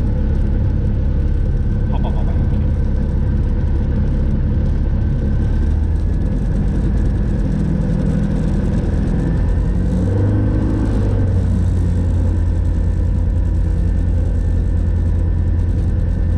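Light aircraft's piston engine and propeller running at low power while taxiing, heard in the cockpit with the canopy open. The engine note shifts about halfway through, then holds steady.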